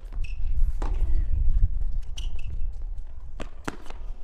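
Tennis match sound on a hard court: a few sharp tennis-ball knocks, one about a second in and two close together near the end, with brief shoe squeaks, over a steady low rumble.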